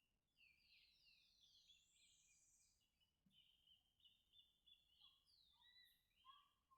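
Faint birdsong: several small birds chirping and calling in quick, overlapping phrases of short downward-sliding notes.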